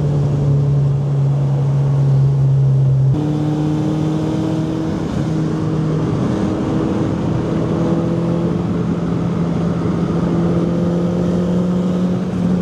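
Nissan Micra's engine running at a steady moderate speed. Its note shifts abruptly about three seconds in, then creeps slowly upward.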